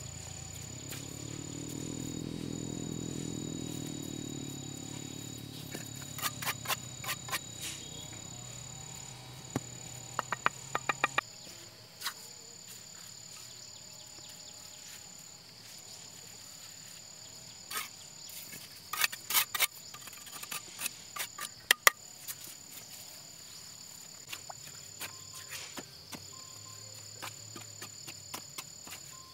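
Insects buzzing and trilling steadily at a high pitch, with clusters of sharp knocks and taps scattered through it and a low rumble that fades out about eleven seconds in.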